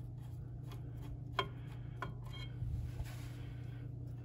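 A Phillips screwdriver working the terminal screws of an oil burner's primary control relay: a handful of separate light clicks and taps, over a steady low hum.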